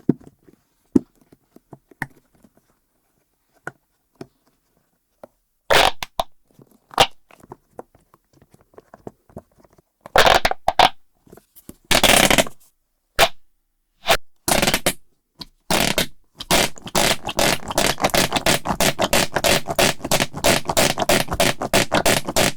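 Silicone push-pop fidget toy with suction-cup poppers being pressed, squeezed and pulled, its bubbles and cups popping: scattered single pops and a few longer squelching bursts, then a fast, even run of pops at about four or five a second.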